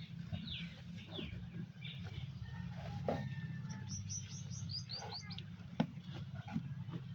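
Small birds chirping, with a quick run of high chirps about four seconds in, over a steady low hum. There are a few sharp clicks, the loudest near six seconds.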